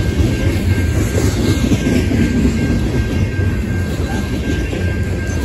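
Loaded coke hopper cars of a freight train rolling past at steady speed: a continuous low rumble of steel wheels on rail, with a faint steady high ringing tone over it.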